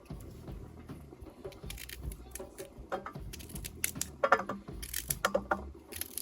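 Metal cooking gear clinking and knocking: a quick run of sharp, ringing clinks in the second half, over a steady low rumble.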